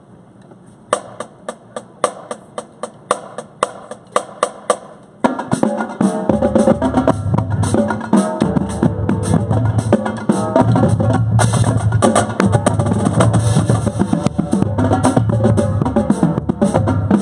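Marching drum line on Pearl snares, tenors and bass drums with cymbals. A run of sharp clicks, about three a second, counts in, and about five seconds in the full line enters with a loud, driving cadence.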